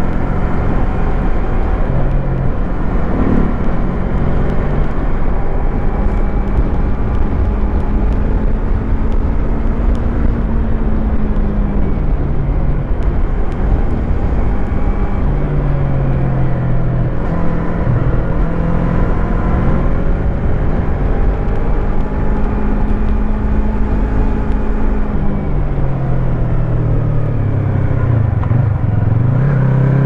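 Yamaha MT-25's two-cylinder engine running under way over a steady low rumble. The engine note holds steady, drops about halfway through, sinks again in the last few seconds and then climbs right at the end.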